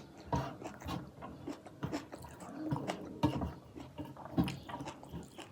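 Close-up mouth sounds of eating fish and rice by hand: irregular wet chewing, lip smacks and soft clicks.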